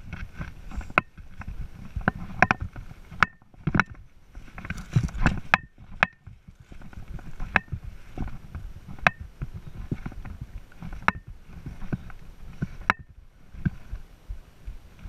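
Sharp clicks and knocks at irregular intervals, roughly one every second or so, some with a short ring, over low rumbling and rustling: footsteps and carried gear on rocky ground, heard close on a body-worn camera.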